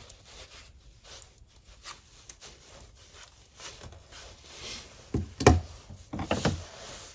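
Handling noises of a small battery-powered mini chainsaw being reassembled: light clicks and taps of the bar and chain parts, then a sharp knock about five seconds in and a short clatter of knocks just after.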